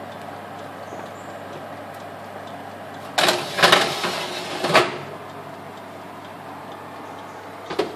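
Metal baking tray scraping as it is slid into an oven along the rack runners, for about a second and a half near the middle, then a short knock near the end. A steady low hum underneath.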